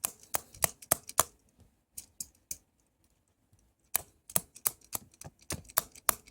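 Irregular sharp clicks and taps of a hand tool slipping and knocking against a plastic remote control. They come in a quick cluster, a few stray taps, a pause of about a second and a half, then a busier run of clicks near the end.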